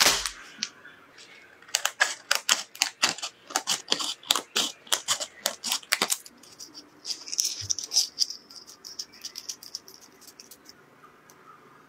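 Dry, brittle rice paper and its plastic wrapping being handled and cut with scissors: a crinkle, then a quick run of sharp crackles and snips, then a softer rustling that fades.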